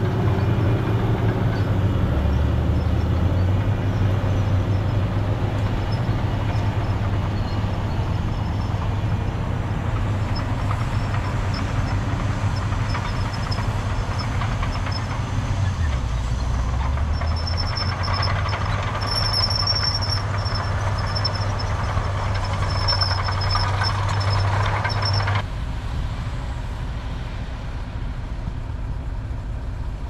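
Heavy diesel earthmoving machinery running steadily under load, its engine note dipping briefly twice, with a high squeal coming and going in the second half. Near the end the sound cuts abruptly to a quieter running engine.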